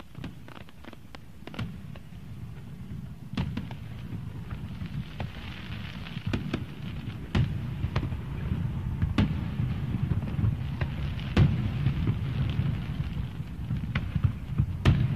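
A low rumble with irregular sharp crackles and pops, growing steadily louder, with a faint held tone briefly about nine seconds in.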